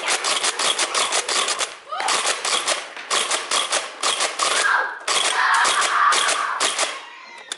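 Nerf foam-dart blasters firing in rapid bursts, a fast run of sharp clacks that breaks off briefly about two seconds in and stops shortly before the end.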